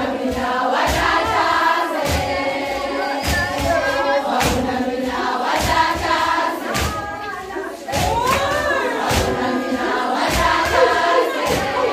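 A group of young women singing a Zulu song together in chorus, with hand claps and thuds keeping the beat. The singing dips briefly about two-thirds of the way in, then comes back.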